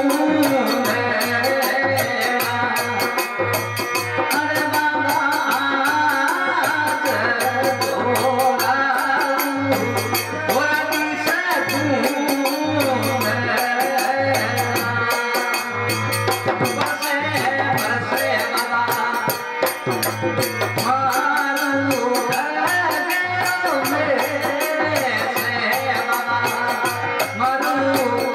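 Rajasthani devotional folk music: a harmonium playing the melody over a drone from a tandura, with a steady jingling rattle and a low drum beat keeping time.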